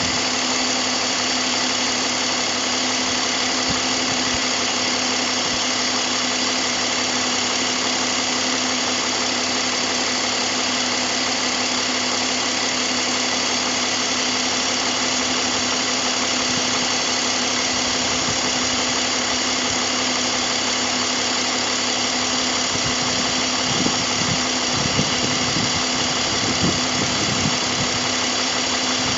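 BMW M54 straight-six engine idling steadily, with a few soft bumps near the end.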